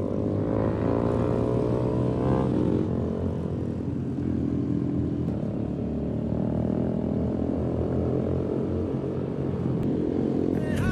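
A pack of small motorcycles riding together, heard from one of the moving bikes. The engine pitch climbs over the first couple of seconds as the bikes speed up, then they run steadily.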